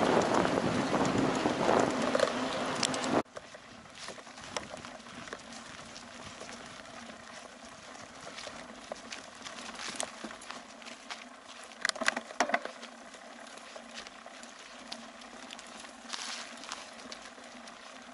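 Wind buffeting the microphone of a camera on a moving mountain bike, the loudest sound, cutting off abruptly about three seconds in. After that, quieter tyre noise on a leaf-covered dirt forest trail with scattered clicks and rattles from the bike over bumps, a cluster of them about twelve seconds in.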